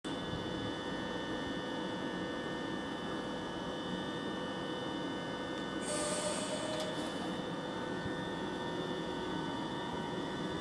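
České dráhy RegioPanter electric multiple unit standing at the platform, giving a steady electric hum with several held whining tones. About six seconds in comes a short hiss lasting about a second.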